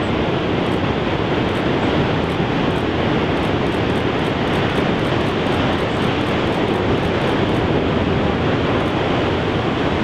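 Steady rushing noise of wind and heavy ocean surf, even and unbroken, with no engine pitch or rhythm.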